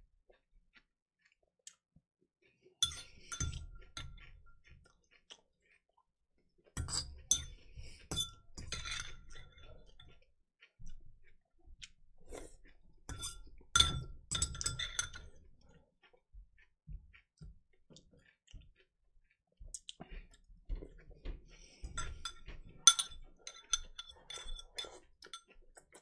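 Fork clinking and scraping against a ceramic salad bowl in four bouts of a few seconds each, quick ticks with a short ring after them, as salad is scooped up. Near the end the bowl is tipped up to the mouth and scraped out.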